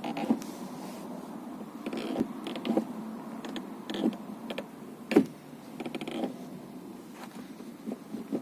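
Manual gear shift lever of a VW Jetta Mk6 creaking as it is moved into gear, a series of separate short creaks and knocks, the loudest a little after five seconds. The creak comes when engaging the forward gears, and greasing the shifter ball has not cured it.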